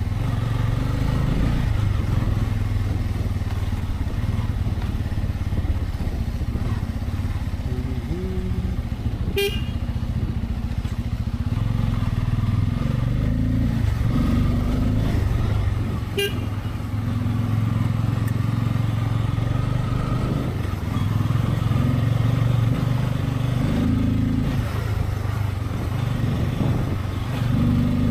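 Bajaj Pulsar N250's single-cylinder engine running at low revs as the motorcycle is ridden slowly. There are two short beeps about seven seconds apart, the first about a third of the way in.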